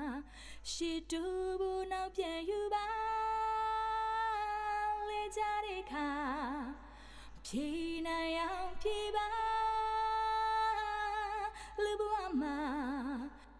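Solo vocal track of a Burmese song played back with reverb from a PlatinumVerb plug-in: one unaccompanied singer holding long notes, with vibrato on the phrase endings and short breaths between phrases.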